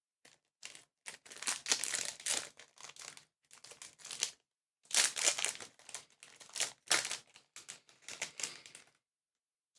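Foil booster pack wrapper crinkling and tearing as the pack is opened, in irregular bursts that stop abruptly near the end.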